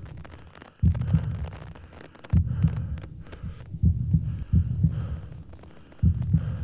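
Heartbeat sound effect: deep double beats about every one and a half seconds, each dying away into a low rumble.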